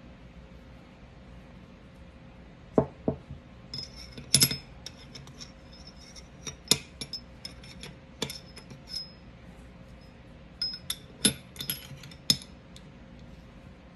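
Sharp metallic clicks and clinks of a disassembled Smith & Wesson M&P Shield Plus 9mm pistol's slide and parts being handled, in scattered clusters starting about three seconds in.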